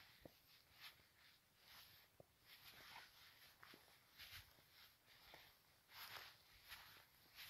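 Near silence: faint outdoor coastal ambience, a soft hiss that swells and fades every second or two, with a few faint short chirps.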